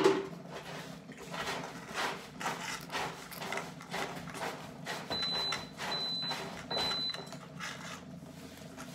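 Several feral cats eating close by, chewing and crunching dry kibble and wet food in an irregular run of small crackles and clicks, with one loud thump right at the start.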